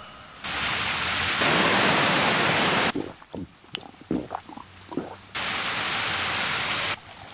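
Two loud bursts of even rushing noise, storm-like, each starting and cutting off sharply: the first lasts about two and a half seconds, the second about a second and a half. In the quieter gap between them, from about three to five seconds in, comes a scatter of small sharp sounds.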